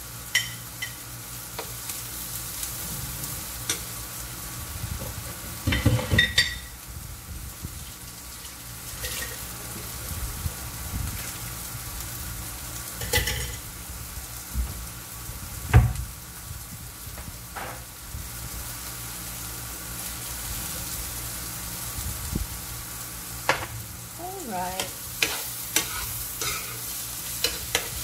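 Sliced carrots, onion and bell pepper sizzling steadily as they are sautéed in a nonstick frying pan, with intermittent clacks and scrapes of a metal spoon stirring against the pan.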